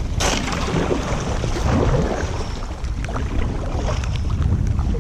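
Kayak paddle strokes splashing through canal water scattered with thin broken ice, over a steady low rumble of wind on the microphone. A sharp splash just after the start is the loudest moment, and scattered small ticks follow.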